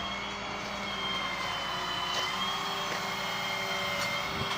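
Steady mechanical drone with a high whine, its pitch shifting slightly a little over two seconds in.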